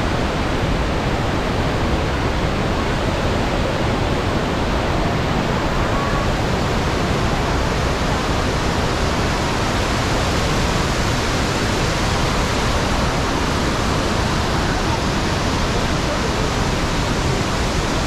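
Iguazu Falls: a loud, steady rush of water pouring over the cliffs and churning through the rapids below.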